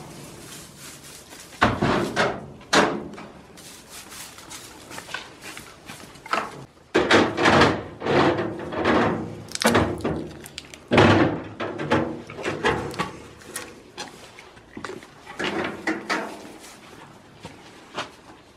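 Goats knocking and bumping against the wooden boards of their pen: irregular thuds and knocks, a dozen or so, some sharp and loud.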